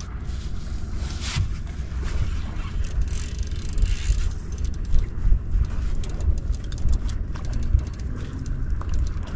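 Wind buffeting the microphone over open water from a small boat: a steady low rumble that swells and dips irregularly, with faint splashing hiss above it.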